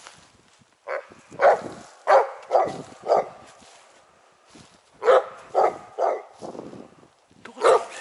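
Hunting dog barking repeatedly at something it has found: a run of about four barks half a second apart, a pause of about two seconds, then another run and a last bark near the end.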